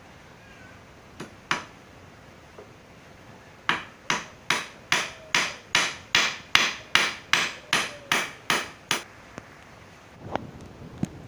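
Hammer driving nails into wood: two light taps, then a steady run of about fourteen blows, roughly two and a half a second.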